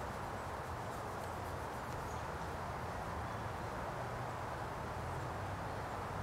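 Steady outdoor background noise: an even hiss with a low hum underneath.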